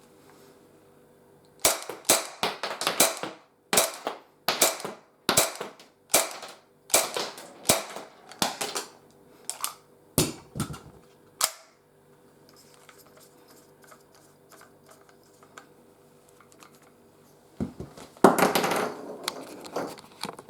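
Handgun fitted with a silencer, fired shot after shot. About fifteen to twenty sharp cracks come over some ten seconds at uneven spacing, then stop. Near the end there is a longer clattering noise lasting about a second and a half.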